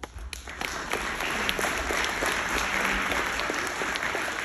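Audience applauding, swelling within the first second into steady clapping that cuts off suddenly at the end.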